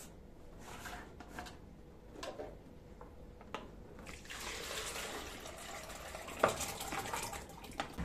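Pickle brine poured from a large plastic jar into a plastic bucket: a steady splashing pour of about three and a half seconds in the second half, after a few light clicks and knocks as the jar's screw lid is opened and the jar is handled.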